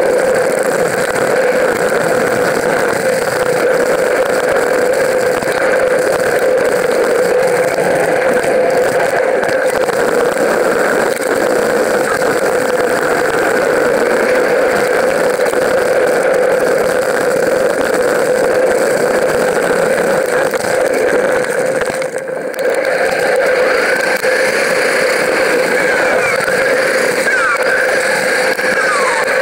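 Steady, loud drone of riding noise from a moving mountain bike, wind and tyre noise on the camera's microphone, with no change in pitch and a brief drop about 22 seconds in.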